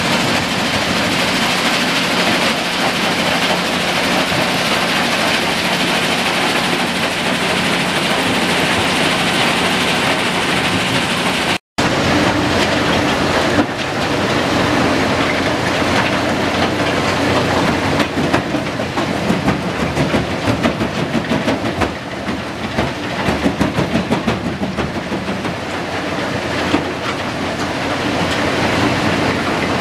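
Kue-Ken rock-crushing plant running: crusher, vibrating screen and conveyors in a loud, steady mechanical din with a constant low hum. After a brief break about twelve seconds in, the din turns uneven, with repeated rattling and clattering as a wheel loader feeds rock into the jaw crusher's feed hopper.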